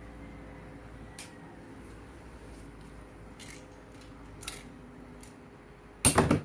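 Infinity Nado spinning tops whirring in a battle arena, with a few sharp clicks as they knock together and a loud burst of clashing near the end.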